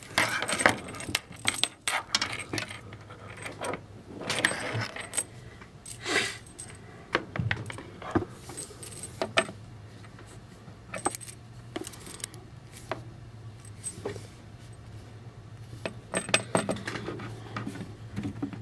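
Scattered clicks, clinks and rustles of handling a soldering iron and its cord while plugging it into the rework station.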